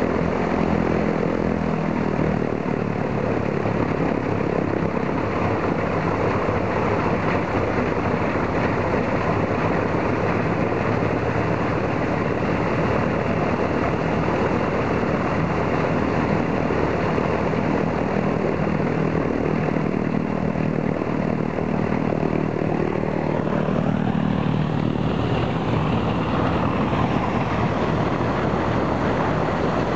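Ilyushin Il-14T's piston radial engine running steadily with its four-bladed propeller turning, on its first run after a long lay-up. A higher whine wavers up and down in pitch near the end.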